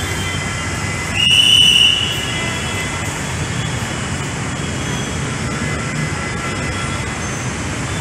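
A single short, shrill whistle blast about a second in, lasting under a second, over a steady low rumble of station and traffic noise.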